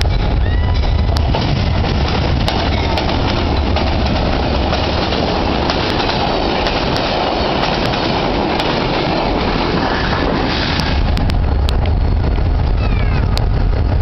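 Amtrak passenger train rolling past close by: a steady rumble of the cars on the rails, loudest in the middle, with irregular sharp clicks of the wheels over rail joints and a few faint short wheel squeals near the end.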